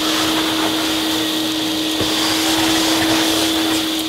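HEPA vacuum running steadily as its hose sucks dry debris off a stripped kitchen floor, a steady drone with a constant hum.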